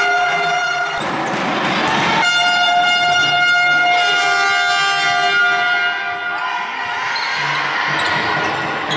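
Spectators' handheld air horns blowing in long held blasts, one after another, over crowd noise in a sports hall. The horns stop after about six seconds and the crowd noise carries on.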